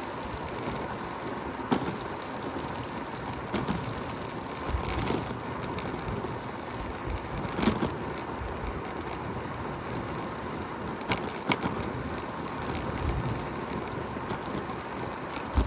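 Steady wind rush and road noise from riding a Segway electric scooter, with a few sharp knocks scattered through it.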